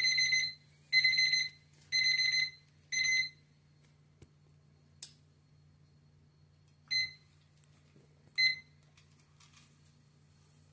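Smartphone alarm beeping, a high electronic beep about once a second that stops about three seconds in. Two short single beeps follow later, as the phone is handled.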